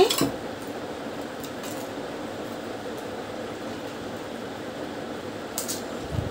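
Steady background hiss with a few faint, short clinks and crackles as crisp fuchka (pani puri) shells are handled and stainless steel bowls are touched.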